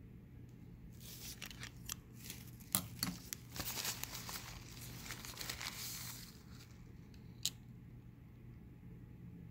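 Rustling and crinkling with many sharp little clicks, lasting about five seconds from a second in, then one lone click near the end.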